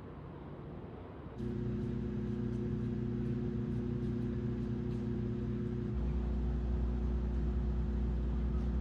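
A vehicle engine running steadily, a low hum that starts suddenly about a second and a half in after faint background noise. Its lowest part grows louder about six seconds in.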